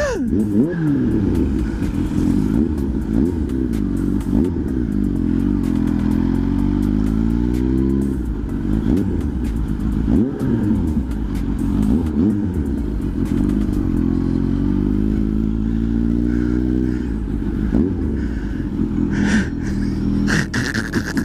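Kawasaki Z H2's supercharged inline-four, fitted with an SC-Project exhaust, pulling hard under riding; the engine note climbs and drops again and again as the bike accelerates and shifts.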